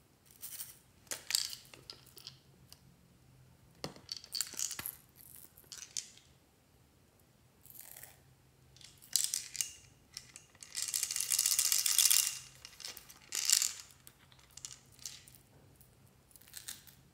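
Small plastic toys and containers of tiny beads being handled over a slime tray: scattered clicks, rattles and crinkles, with a denser run of rattling lasting about a second and a half a little past the middle.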